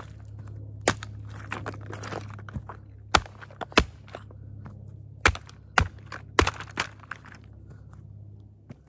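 Toy Grave Digger monster truck being crushed: a series of about seven sharp cracks and snaps of breaking plastic, with a short stretch of crunching about two seconds in.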